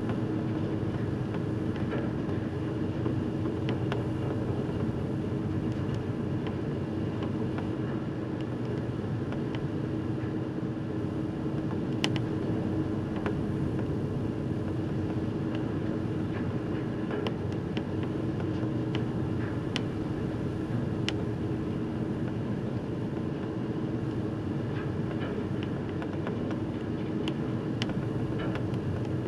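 Nankai Ferry car ferry under way: a steady low rumble with a constant hum from the ship. Now and then faint short clicks and ticks sound over it.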